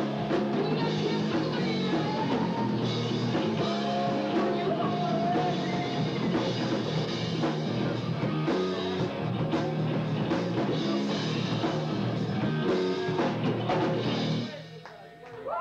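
Live rock band playing, with electric guitars and a drum kit. The music drops away suddenly about a second before the end.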